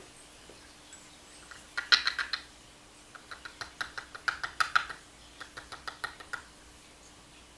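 Rapid runs of light metallic clicks and taps, in three bursts, from the small pins and springs of a disassembled pin-tumbler padlock being handled and sorted.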